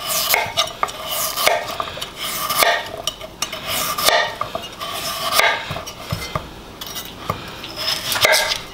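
Kitchen knife slicing a chayote (chocho) on a wooden cutting board, the blade knocking on the board roughly once a second.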